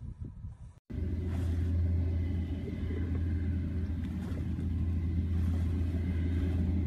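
A vehicle engine idling steadily with a low rumble, starting after a brief dropout about a second in.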